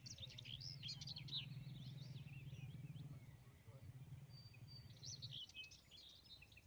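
Small birds chirping and twittering in quick, busy bouts, thinning out in the middle and picking up again about five seconds in, over a faint low rumble that stops shortly after.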